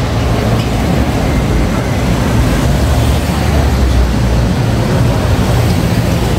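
Busy city street noise: a steady low rumble of traffic, with passing pedestrians.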